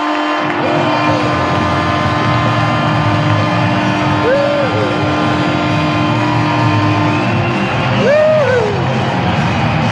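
Arena goal horn sounding a long steady note over a cheering, whooping hockey crowd for an overtime winning goal, with goal celebration music playing. The horn cuts off about seven seconds in while the cheering and music carry on.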